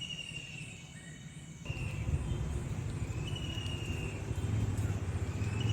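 A motor vehicle's low engine rumble sets in about two seconds in and grows slightly louder, over faint insects chirping at intervals.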